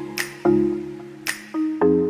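Background music: short pitched notes struck and fading, over a regular percussion beat of about one hit every 0.8 seconds.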